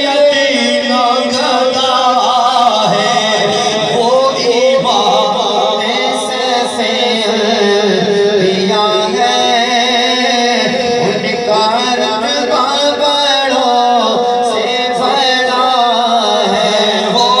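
Man singing a naat, an Urdu devotional poem in praise of the Prophet, into a microphone in long, wavering melodic lines.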